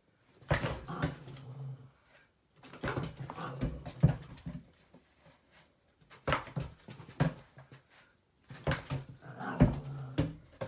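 Pet dogs whimpering and yipping excitedly in four short bouts, each a second or two long, with quiet gaps between.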